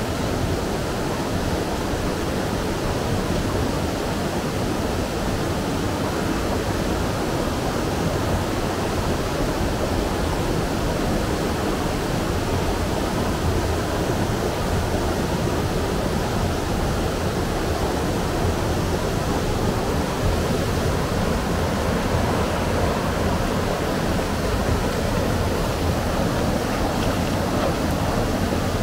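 Mountain stream rushing over boulder rapids into a pool: a steady, unbroken rush of water.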